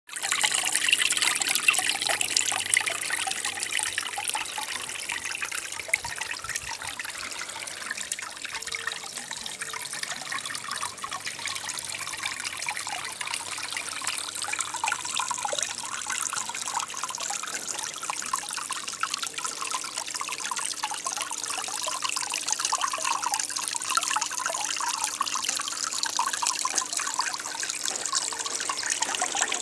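Water trickling steadily down a small 40 cm decorative waterfall fountain.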